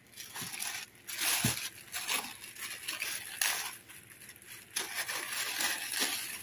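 Clear plastic packaging bag crinkling and rustling in repeated bursts as it is handled and pulled open by hand.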